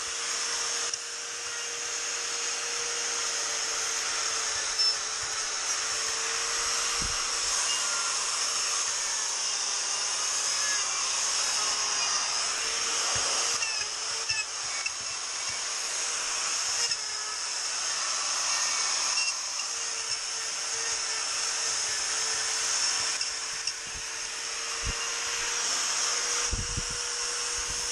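Electric die grinder running continuously with a saber-tooth flame bit, grinding and shaping wood with a steady high whine.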